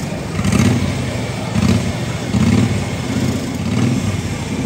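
Modified lawn mower engines running, swelling and dropping back in uneven revs about once a second.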